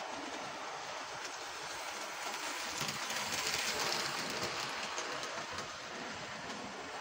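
Large-scale model train running on its track: a steady rattle of wheels over the rails with fine clicks, loudest about three to four seconds in as the cars pass close.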